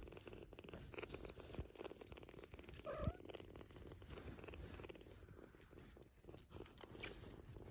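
Sphynx cats purring faintly and steadily while the kittens suckle from their mother, with one brief louder sound about three seconds in.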